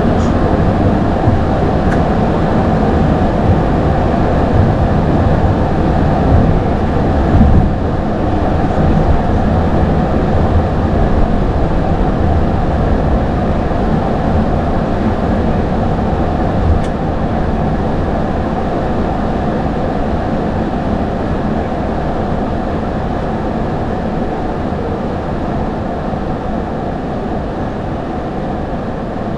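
Airbus A220-300 rolling on the ground after landing, heard from the cockpit: a steady rumble that slowly fades as the aircraft slows, with a couple of short bumps.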